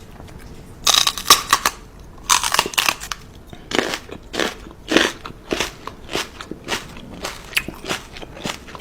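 Crisp crunching and chewing of something brittle, a run of irregular crunches about one or two a second, loudest in the first few seconds.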